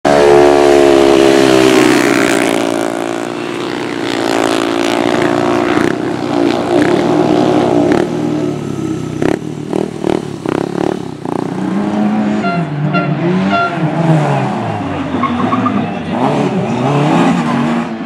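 Racing engines running loud on a cinder speedway track, with a few sharp cracks around the middle. In the second half a Lada 2107's engine revs up and down over and over as the car slides through a turn.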